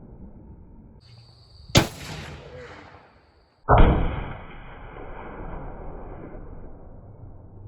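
Two shots from a .223 bolt-action rifle, about two seconds apart. The second is louder, with a long fading rumble and a high steady ring that dies away over a couple of seconds.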